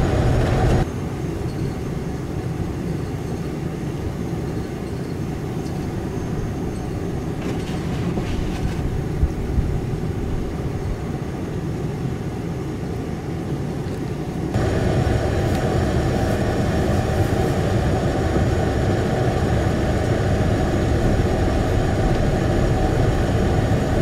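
Steady low rumble of blizzard wind and vehicle road noise, with no distinct events. It drops abruptly to a quieter level about a second in and jumps back up to a louder level a little past halfway.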